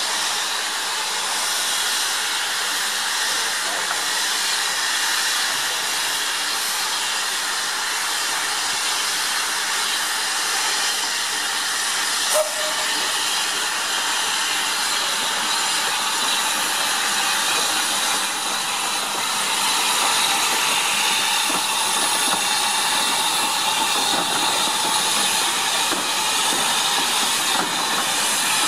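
LNER Class Y7 0-4-0T steam tank locomotive moving slowly with a short train, steam hissing steadily from around its cylinders, the sign of open cylinder drain cocks. One sharp click about twelve seconds in.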